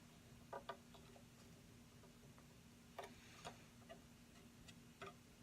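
Near silence with a low steady hum, broken by a handful of faint, short clicks and taps as the bench grinder's eye-shield brackets are handled and set to an angle.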